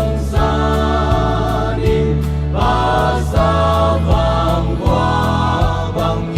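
Music: a song with sung vocal phrases and held notes over a steady bass line and a regular beat.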